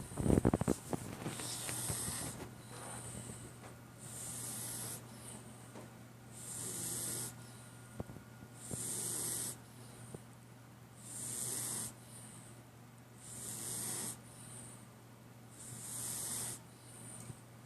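A sleeping cat snoring: a raspy, hissing breath about every two and a half seconds, each a longer hiss followed by a short one, over a faint steady hum. A louder burst of noise comes right at the start.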